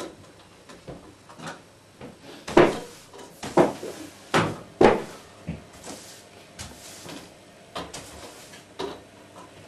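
Irregular knocks and clunks, like cupboard doors or drawers being handled, coming about once a second. The four loudest fall between about two and a half and five seconds in.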